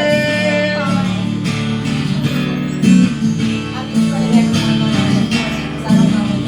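Live band playing an instrumental passage of a soft-rock ballad, led by a strummed acoustic guitar over a steady bass, with a held note trailing off about a second in.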